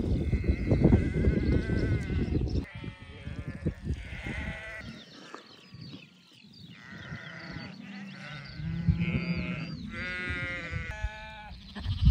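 A large flock of sheep bleating, many calls overlapping, from about two and a half seconds in. A low rumble fills the opening couple of seconds.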